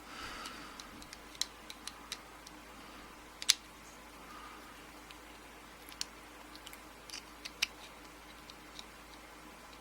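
Scattered small sharp clicks and ticks from tools working at the retaining clip on the back of a euro cylinder lock, with the loudest click about three and a half seconds in.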